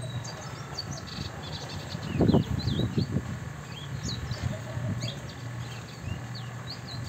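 Caged congo songbird singing a rapid series of short, high chirps and whistled slurs, with a brief low thump about two seconds in.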